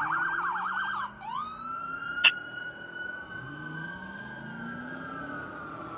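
Fire engine siren switching from a fast yelp to a wail: it rises about a second in, then slowly falls. A short, sharp, loud blast comes about two seconds in. Underneath, the truck's engine rises in pitch as it accelerates away.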